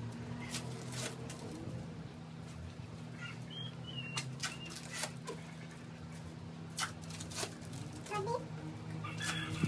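Scattered clicks and light knocks of hands working with food, utensils and a plastic bag at a gas stove. Short chirping bird calls come about three to four seconds in and again near the end, over a steady low hum.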